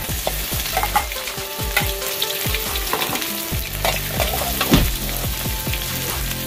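Pounded red curry paste frying in hot oil in a metal wok, sizzling steadily while a metal spatula stirs it, with frequent short scrapes and clicks of the spatula on the pan.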